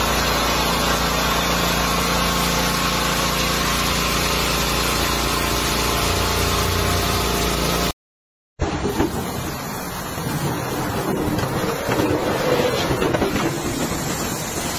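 High-pressure washer running steadily, a constant machine hum under the hiss of water jetting from a multi-nozzle spray bar onto brick paving. It cuts off about eight seconds in, and after a brief silence comes the rougher, uneven scrubbing of a ride-on sweeper's rotating side brush over the bricks.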